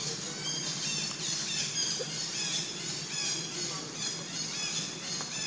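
Dense chorus of birds chirping and squawking: many short, high calls that glide downward, overlapping one another throughout.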